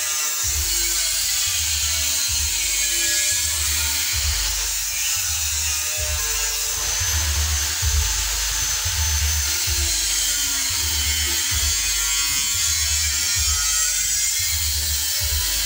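Background music with a deep bass pulse about every two seconds and a gliding melody over it.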